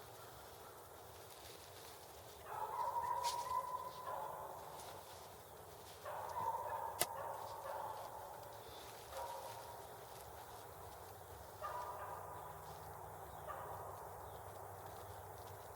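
Wild turkey gobbling, four or five separate rattling calls each lasting a second or two, with a single sharp click about seven seconds in.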